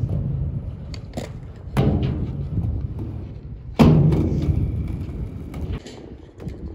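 Skateboard wheels rolling on the concrete of a skate bowl: a low, steady rumble broken by two sharp knocks of the board, about two seconds in and, louder, about four seconds in as the rider turns on the bowl wall. A faint high whine follows for under two seconds.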